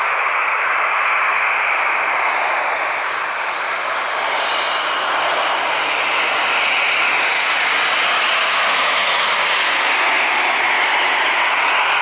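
Airbus A320 jet airliner on final approach with its landing gear down, its engines at approach power giving a steady rushing jet noise with a high whine in it, filling out a little as the aircraft comes closer.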